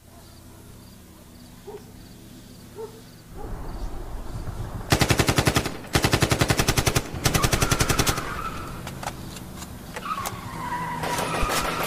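Three bursts of rapid automatic gunfire, each about a second long, after a low rumble swells about three seconds in. Then a wavering tire squeal.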